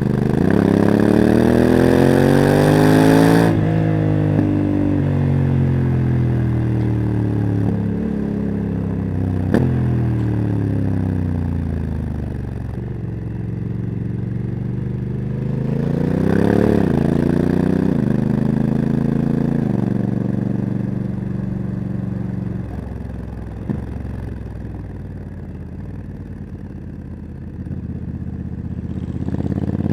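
Honda CRF1100 Africa Twin's parallel-twin engine through a Leo Vince exhaust, pulling and backing off: the revs climb for the first few seconds and drop sharply, climb again around the middle and drop, then settle lower and ease off before picking up near the end. Two short sharp clicks stand out.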